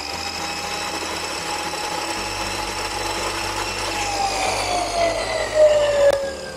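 Dekton DK-CS2400 cut-off saw's 2400 W brushed motor running free with a steady whine. About four seconds in it begins coasting down with falling pitch, with a single click near the end.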